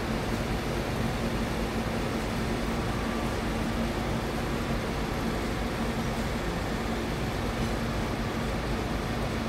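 Work truck engine running steadily at constant speed, a continuous low drone with a steady hum; this is the sort of engine that powers the hydraulic booms of a bucket truck or crane.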